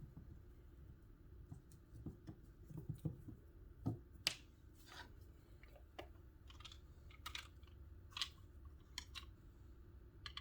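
Faint, scattered clicks and light taps, about a dozen spread irregularly, the loudest a pair about four seconds in: small plastic parts of an in-wall cord kit being handled and fitted.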